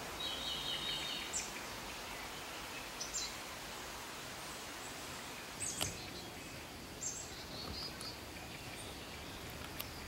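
Forest ambience: a steady background hiss with small birds chirping, a short trill near the start and brief chirps scattered through. One sharp click sounds a little before the middle.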